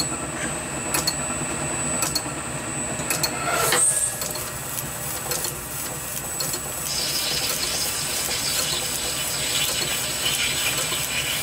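Small metal lathe running, its chuck spinning as the tool takes a light cut in the bore of a brass flywheel. The motor gives a steady high whine with regular ticking, a louder knock comes about four seconds in, and a scraping hiss joins from about seven seconds in.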